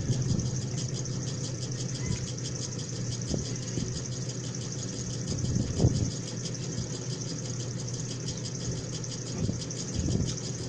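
A steady low machine hum, with a few short knocks and scrapes of plastic forks and a paper food box being handled while eating.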